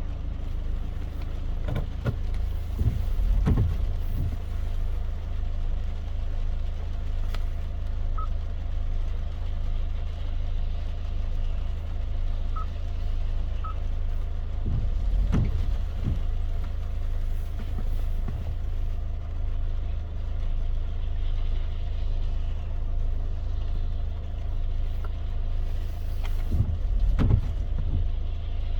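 Steady low rumble of a car driving, heard from inside the cabin, with light rain and road noise over it. A few short low thumps come roughly every twelve seconds.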